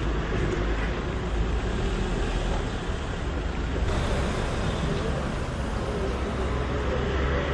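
Ford Transit pickup truck driving past close by: a steady run of engine and road noise with a strong low rumble and no sudden changes.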